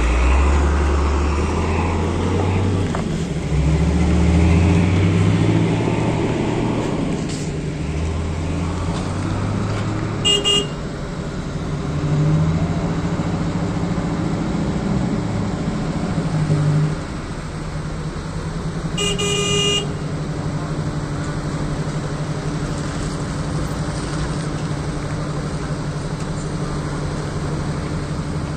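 Vehicle engines in slow stop-and-go traffic, pulling forward with rising and falling engine pitch, then a pickup truck's engine idling steadily close by. A car horn sounds briefly about ten seconds in, and again for longer a little before the twenty-second mark.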